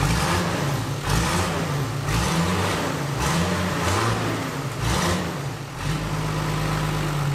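Nissan Patrol 3.3-litre non-turbo six-cylinder diesel being revved several times in quick succession, then dropping back to a steady idle about six seconds in.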